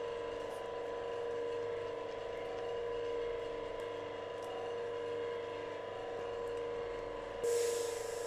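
A steady hum made of several even tones. About seven and a half seconds in comes a short hiss, the sizzle of the hot knife blade being cooled in water because the tempering heat from the hot tongs is spreading too far.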